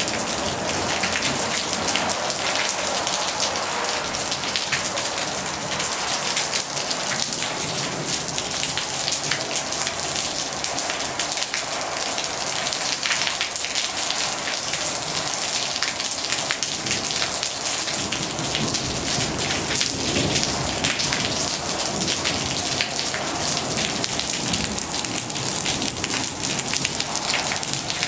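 Steady rain falling on hard surfaces, a dense hiss of many small drop ticks that stays even throughout.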